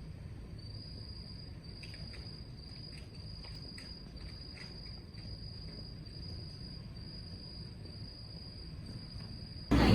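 An insect, cricket-like, singing a high, even trill in repeated notes, about one and a half a second, over faint background hiss. The sound cuts off abruptly just before the end.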